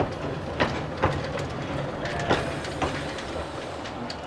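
Narrow-gauge steam locomotive Edward Thomas rolling slowly along the track: a low steady rumble with several sharp clicks of the wheels over the rail joints.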